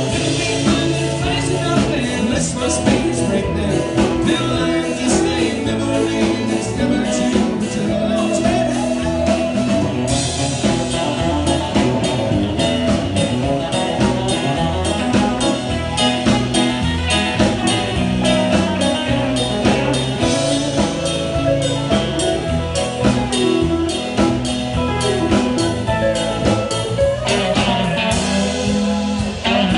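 Country band playing live: electric guitars over a drum kit, a steady rhythm of drum strikes throughout.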